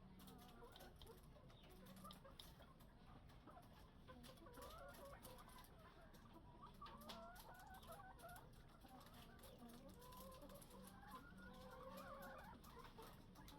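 Chickens clucking faintly and continuously, many short wavering calls overlapping from a flock.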